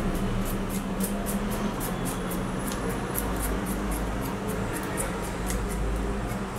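Hand vegetable peeler scraping the skin off a raw potato in quick repeated strokes, about three to four a second, over a steady low hum.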